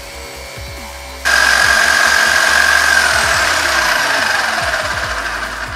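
Warn PullzAll electric pulling tool's motor starts about a second in and runs with a high whine, spooling the new synthetic rope back onto its drum. The whine drops in pitch partway through, and the sound grows slowly quieter.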